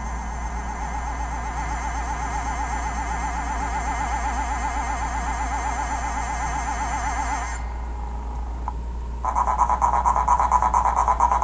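Cartoon soundtrack: a warbling pitched tone with a fast, even vibrato holds for about seven and a half seconds and then stops. After a short gap, a tone of similar pitch pulses rapidly near the end.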